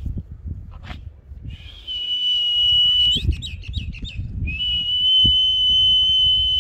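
A person whistling: a long, steady high note, then a quick run of short rising chirps, then a second long steady note held until near the end.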